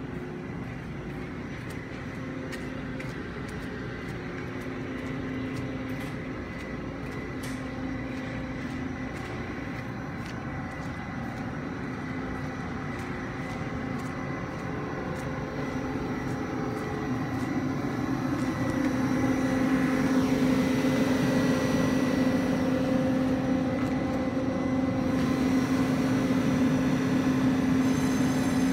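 Electric locomotive of a Tze-Chiang push-pull express (E1000 series) humming steadily with a low drone. It grows louder about two-thirds of the way in.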